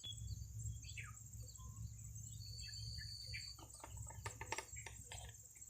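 Small birds chirping over a steady insect drone, with a low rumble underneath. A run of clicks and knocks comes about four seconds in.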